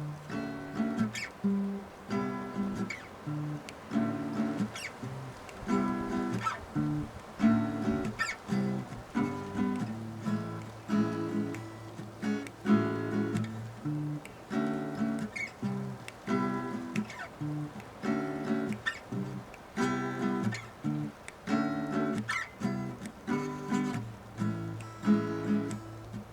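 Acoustic guitar playing a rhythmic pattern of strummed chords, with no singing.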